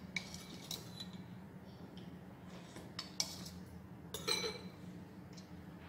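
Metal spoons clinking and scraping against a ceramic soup bowl and a glass dessert goblet while eating: a handful of light, scattered clinks, some with a short ring.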